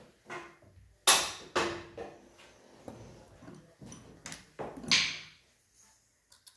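A series of sharp metallic knocks and clanks from engine parts and tools being handled and set down during motorcycle engine assembly. The loudest comes about a second in and another loud one near the end.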